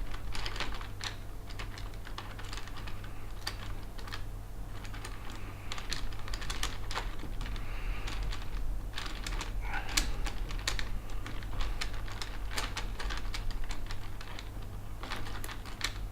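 Small M3 screws and hex nuts clicking and tapping against an acrylic panel and a plastic fan as they are fitted by hand: irregular light clicks, over a steady low hum.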